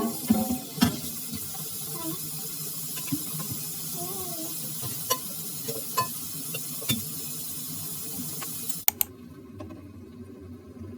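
Food sizzling in a pan, with a utensil clicking against the pan a few times while stirring. The sizzling cuts off suddenly near the end.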